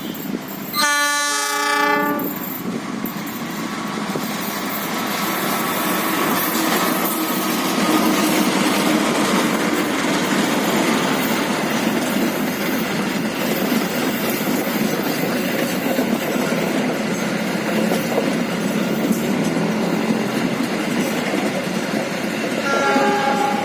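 Indonesian GE diesel-electric locomotive sounding a brief multi-tone horn about a second in, then a train running past with steady loud wheel-and-rail noise. The horn sounds again briefly near the end.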